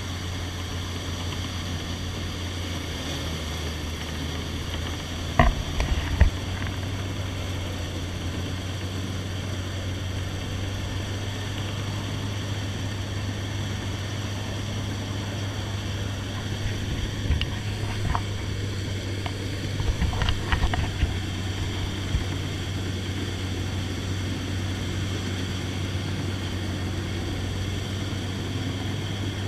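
Small flat-bottom boat's engine running steadily as the boat pushes through mud and marsh grass, with a few sharp knocks of the hull about five to six seconds in and again a cluster around seventeen to twenty-one seconds in.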